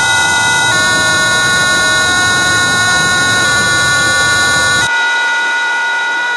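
Experimental electronic music: a loud drone of many steady, sustained tones over a dense noise bed. About five seconds in, the noise drops away and the higher held tones carry on alone.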